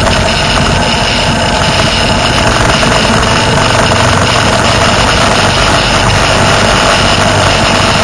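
Motorcycle engine running steadily at highway cruising speed, mixed with a steady rush of wind noise.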